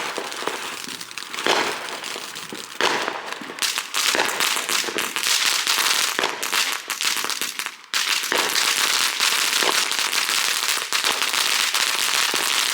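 Consumer fireworks going off: a few sharp pops, then a dense, continuous crackling from about three and a half seconds in, which stops for a moment near eight seconds and starts again.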